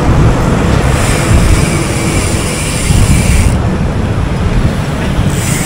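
Steady road and wind rumble of a car driving at speed, a low rumble with hiss above it that dips for about two seconds midway.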